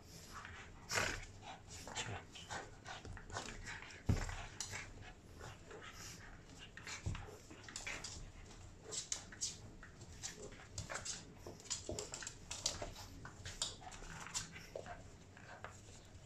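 Boston terrier puppy and a larger Boston terrier playing together over a rope toy: a busy string of short, irregular clicks, scuffles and dog noises, with a louder thump about four seconds in.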